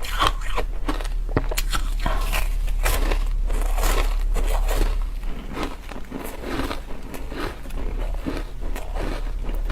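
Ice being bitten and chewed close to the microphone: dense, irregular crunching and cracking, several crunches a second, over a steady low hum.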